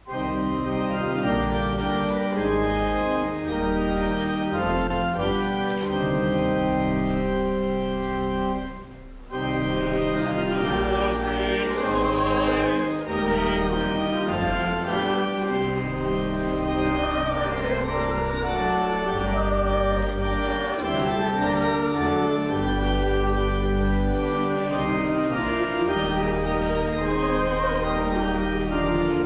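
Church organ playing a hymn tune in full chords, with a short break about nine seconds in before it carries on: the music for a congregational hymn.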